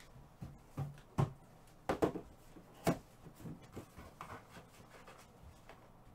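A handful of soft knocks and taps, like objects being handled on a table or desk, loudest in the first three seconds, then lighter scattered clicks.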